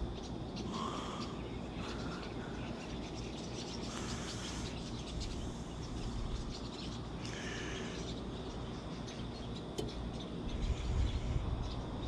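A silver tabby cat on a person's lap purring close to the microphone, a steady low rumble that grows louder near the end. A few short bird calls sound in the background.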